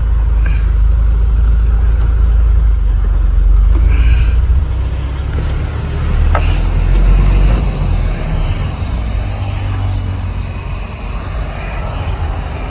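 A loaded lorry on the move: a steady low rumble of engine and road, easing slightly in the second half, with one brief click about six seconds in.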